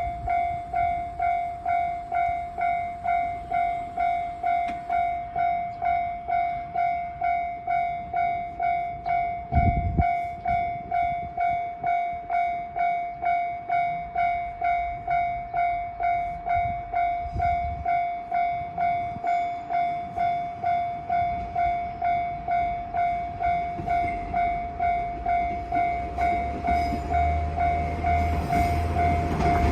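Japanese railway crossing warning bell ringing its steady electronic 'kan-kan' tone, a bit under two strikes a second. A brief low thump comes about ten seconds in, and near the end the rumble of an approaching KiHa 47 diesel railcar grows louder under the bell.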